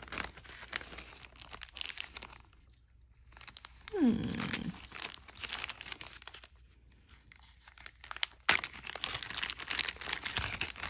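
Packaging crinkling and rustling in three bouts, with many small clicks, as it is handled and opened.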